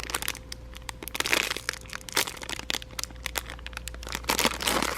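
Crinkling and rustling handling noise with scattered sharp clicks, swelling into longer rustles about a second in and again near the end.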